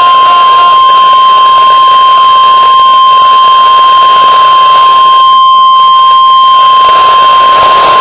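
NOAA Weather Radio's 1050 Hz warning alarm tone: one loud, steady single-pitched tone over radio static hiss. It is the attention signal that comes before an emergency alert broadcast, here a severe thunderstorm watch.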